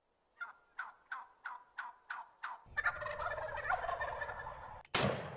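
A series of about seven short descending turkey yelps, then a wild turkey gobbling for about two seconds, ending in a single loud shot.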